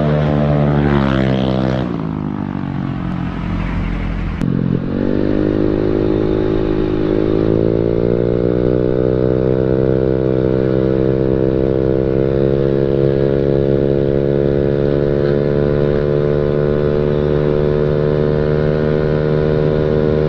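Honda Beat automatic scooter's single-cylinder engine with an aftermarket CLD racing exhaust on a stock engine. First it passes by and its exhaust note drops in pitch as it goes past. Then, from the rider's seat, the revs climb for a few seconds and hold steady while it cruises.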